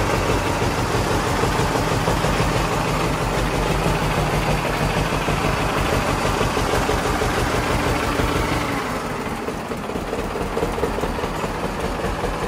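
Antique tractor engine running steadily with a low, pulsing note; about nine seconds in the note drops and gets slightly quieter.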